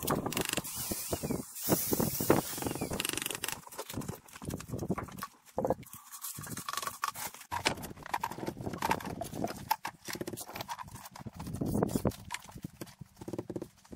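Irregular knocks and scrapes of a mason's hand tool working on stone and mortar along a stone veneer wall.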